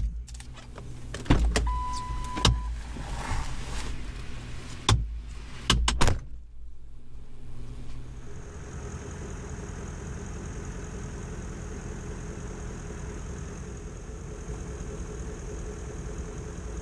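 Clunks and thumps from a Ford F-150 pickup's cab as the driver's door is opened and the driver climbs out, with a short steady electronic beep about two seconds in. After that a steady hum and hiss.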